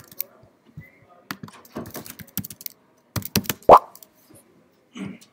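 Typing on a laptop keyboard: irregular keystrokes, with a quick run of louder key presses about three seconds in, the loudest a single thump.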